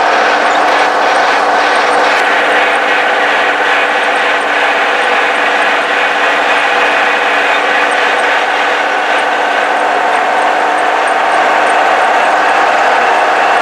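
Case 1030 tractor's six-cylinder diesel engine running steadily under load while driving, heard from inside the cab, with a few light rattles in the first couple of seconds.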